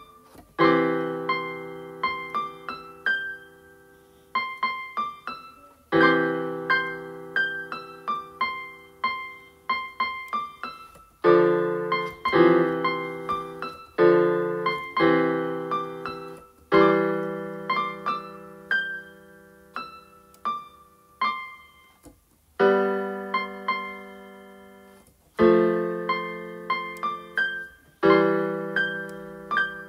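Solo piano music: chords struck every few seconds and left to ring out, with short higher notes played between them.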